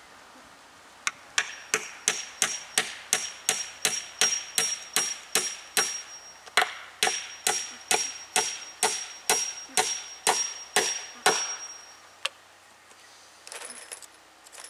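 Claw hammer driving a nail into a wooden fence post, a long run of steady blows about three a second with a thin ringing note over them, then one last single blow.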